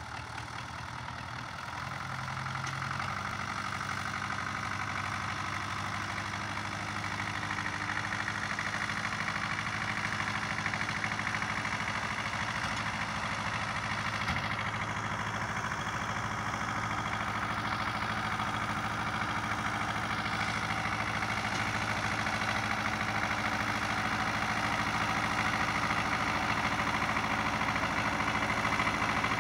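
Soviet tractor's diesel engine running steadily as the tractor drives along, growing slowly louder as it comes closer.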